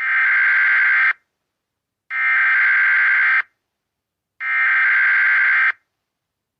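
Emergency Alert System SAME header: three digital data bursts, each a little over a second long, about a second apart.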